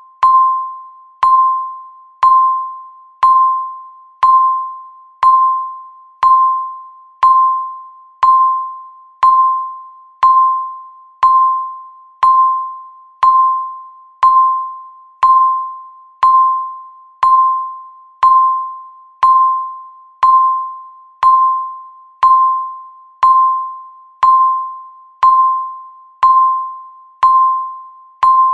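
Countdown timer beeping once a second: a single high electronic tone that starts sharply and dies away before the next, repeating evenly.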